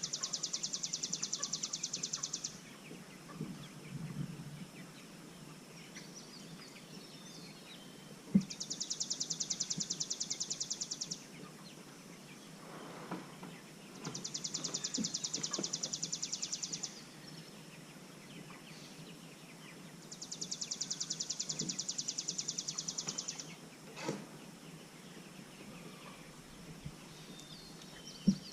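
A high, rapid, buzzy trill about three seconds long, repeated four times roughly six seconds apart. A few short sharp clicks fall between the trills.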